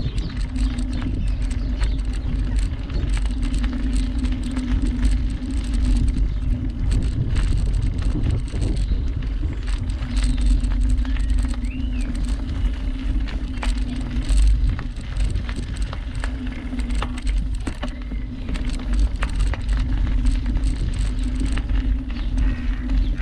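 Bicycle being ridden along a canal towpath: continuous tyre rumble with a steady low hum and a stream of small rattling clicks, over a heavy low rumble from wind and vibration at the camera.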